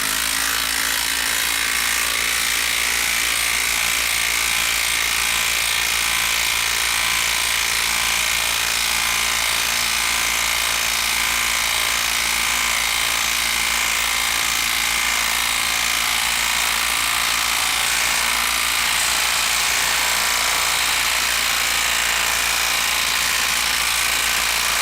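Makita 12-volt brushed subcompact impact driver hammering steadily as it drives a TimberLok lag screw in.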